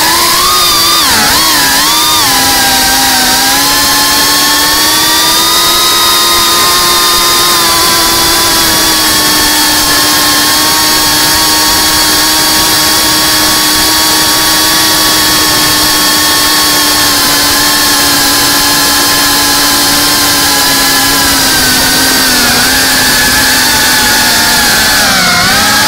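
FPV quadcopter's brushless motors and propellers whining as one steady, high buzz. The pitch wavers with throttle changes in the first few seconds and again near the end, and holds nearly level through a long cruise in between.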